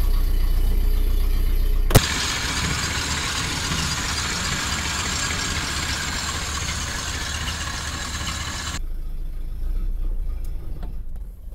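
Ford Model A's four-cylinder flathead engine idling steadily, running on a wire laid straight from the coil to the distributor to bypass the ignition lock. A sharp click comes about two seconds in. The engine then sounds close up and hissy, and near the end settles back to a low steady rumble.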